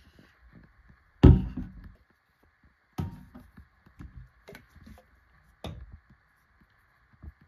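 Plastic skincare bottles and a tube knocking and tapping against a shelf as they are handled and lifted out. One sharp knock comes about a second in, a second knock about three seconds in, then several lighter taps, over a faint steady hiss.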